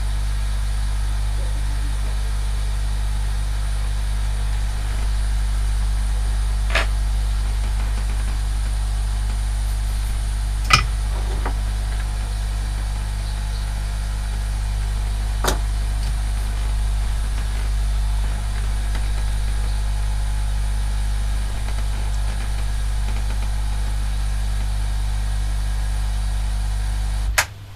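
Steady low electrical hum from running workbench equipment, with a few light clicks, cut off suddenly with a click near the end as the equipment is switched off.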